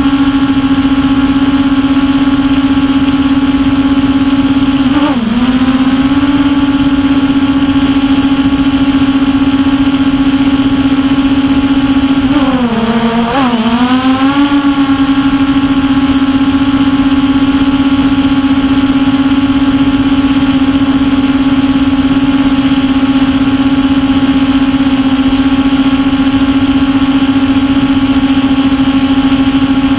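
MJX Bugs 5W quadcopter's brushless motors and propellers running with a steady, loud hum, heard from the camera on board. The pitch dips briefly about five seconds in, then sags further and wavers for a couple of seconds around the middle before settling back to its steady note.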